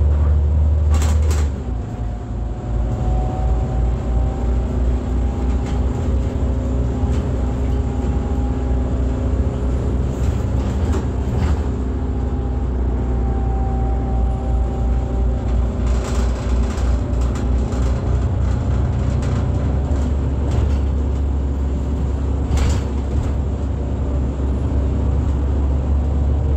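The IVECO Cursor 8 diesel of an Irisbus Citelis 18 articulated bus, heard from inside the cabin, running with a steady low rumble. Its note drops a little about a second and a half in. A few short sharp noises stand out over the drone.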